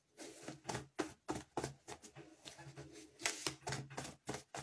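Deck of cards being shuffled by hand: an irregular run of quick flicks and taps of the cards.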